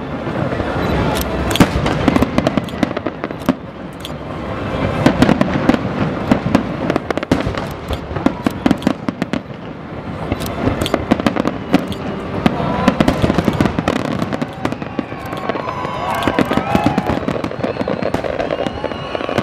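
Aerial fireworks shells bursting in quick succession: dense sharp bangs and crackle, the barrage swelling and easing in waves.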